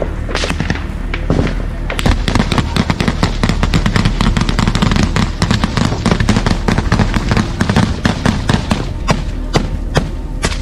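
Heavy, close small-arms gunfire: rapid rifle and machine-gun shots crackling almost continuously from about two seconds in, thinning out near the end.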